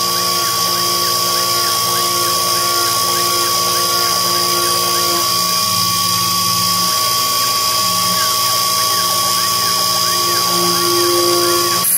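Sherline milling machine's spindle running at about 10,000 rpm, whining steadily while a small carbide cutter works a hole in a 7075 aluminium block, with a fainter tone rising and falling over and over.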